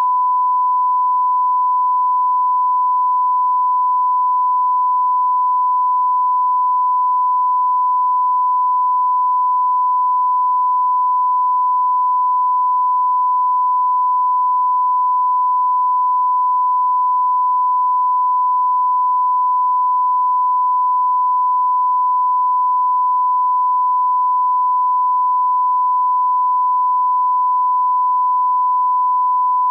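Broadcast line-up test tone: the steady 1 kHz reference tone that accompanies SMPTE colour bars, one unbroken pure tone at a constant level.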